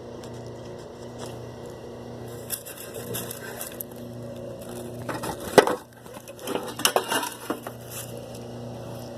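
Irregular knocking and clattering of something being handled and adjusted, with one sharp loud knock about five and a half seconds in, over a steady low hum.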